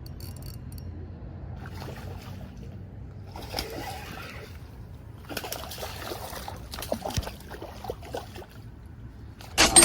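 Water splashing and sloshing in a few irregular bursts, a hooked fish thrashing at the surface of the creek. Near the end comes a sharp, loud clack with a brief ringing tone.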